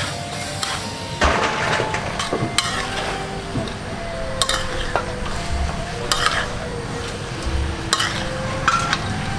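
Chicken being stir-fried in a pan, sizzling, with a spatula scraping and knocking sharply against the pan every second or two.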